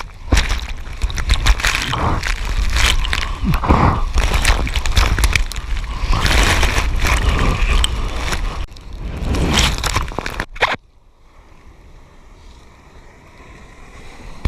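Surf water rushing and splashing over a GoPro on a bodyboard riding a wave, with the wind rumbling on the microphone. About eleven seconds in it cuts off suddenly to a much quieter steady hiss.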